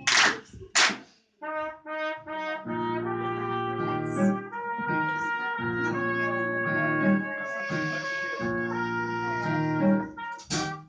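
Instrumental music on brass instruments playing held chords over a low bass in phrases, opening with two sharp percussive hits.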